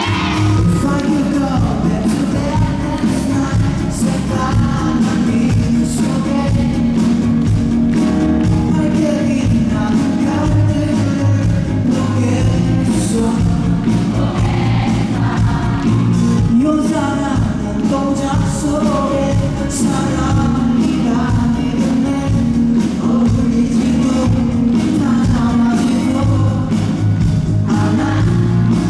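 Live rock band performance with a male lead vocal singing over drums, bass, guitars and keys.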